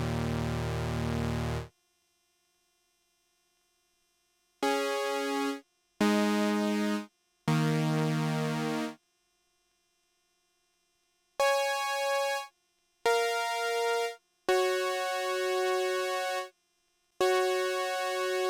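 Behringer Phara-O Mini analogue synthesizer playing a series of held chords, dry with no effects, each lasting one to two seconds with short breaks between them. The last chords are longer and have a slow pulsing wobble.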